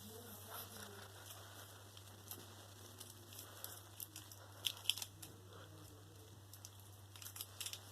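Scattered light crackling and rustling clicks from a cat playing with a stick, with a louder cluster of clicks a little under five seconds in.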